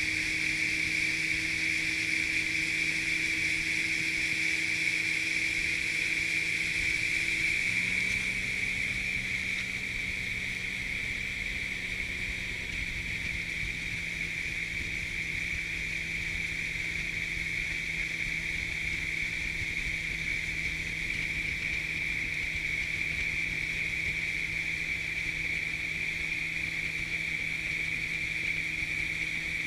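Motorboat engine running steadily at speed, with the rush and hiss of water off the hull and wake. About eight seconds in, the engine note shifts and the sound drops a little.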